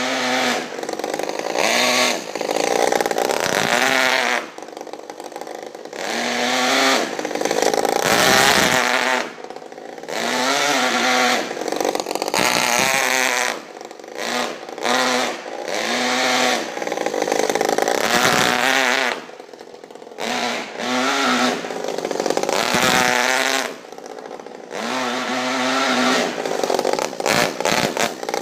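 Modified Saito FA-50 four-stroke glow engine in a Traxxas Nitro 4-Tec RC car, revving up and dropping back in repeated short bursts, about a dozen surges, each rising in pitch and then falling off. The car stays in one gear because its two-speed transmission was not set to shift.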